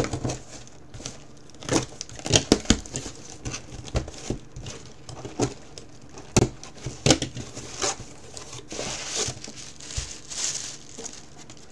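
Utility knife slitting the packing tape on a small cardboard box, with scattered sharp clicks and scrapes of blade and cardboard. Over the last few seconds the box flaps are pulled open and a plastic bag inside crinkles.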